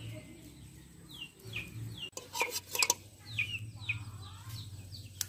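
Domestic fowl calling: short falling chirps repeated several times, with a few sharp clicks about halfway through.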